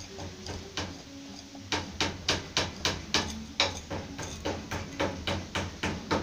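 Sharp metal clicks about three times a second, starting a couple of seconds in, as a hand tool works a bolt at the hub of a homemade gas turbine's aluminium wheel during assembly.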